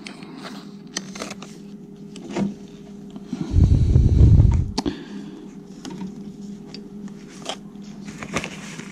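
Small clicks and rustles of wires being twisted together under a plastic wire nut, over a faint steady hum. About three and a half seconds in comes a louder low rumble lasting about a second, the loudest sound here.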